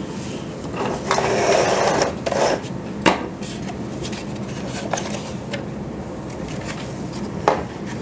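A 3D-printed plastic gearbox being handled and set down into a plastic tank hull: a scraping rub about a second in, then a few scattered clicks and knocks of plastic on plastic.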